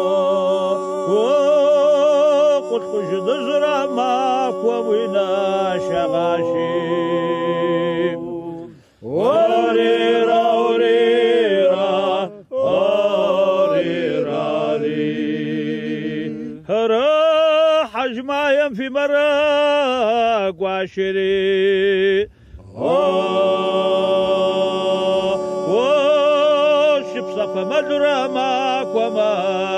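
A small group of men singing a Kabardian folk song unaccompanied, in several parts: some voices hold steady notes beneath a wavering lead. They sing in long phrases separated by short breaths.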